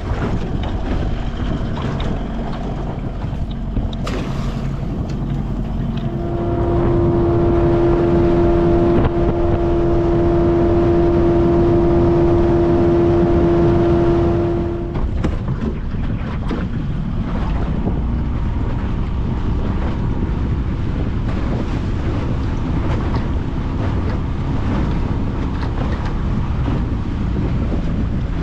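Outboard motor running on a small boat underway, with rushing wind and water noise. For several seconds in the middle the engine runs louder, holding a steady higher-pitched tone, then drops back.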